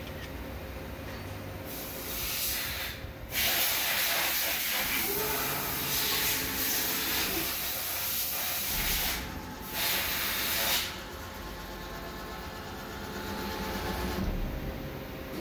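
CNC deburring machine working on a helical gear shaft: a loud hiss switches on about two seconds in and runs for several seconds, breaks off for a moment near ten seconds, and stops sharply about eleven seconds in, over a low machine hum.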